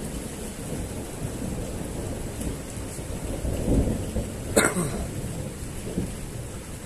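Steady rain with thunder rumbling after a nearby lightning strike. The rumble swells shortly before four seconds in, followed by a single sharp crack.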